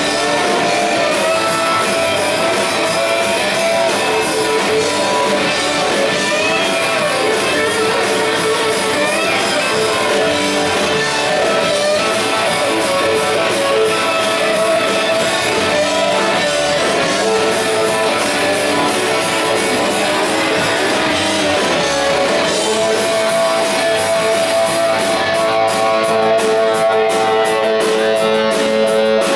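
Rock band playing live and loud, electric guitars to the fore, with wavering held notes over a steady full band.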